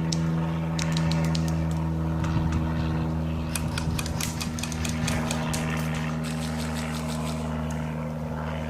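Airsoft gunfire: scattered sharp cracks and short rattling bursts, thickest in the middle, over a steady low mechanical hum.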